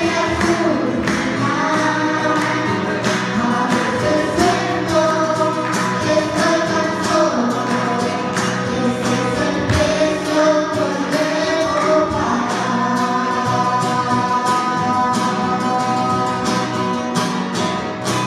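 A school children's singing group singing a song together, their held notes moving from pitch to pitch over a steady beat.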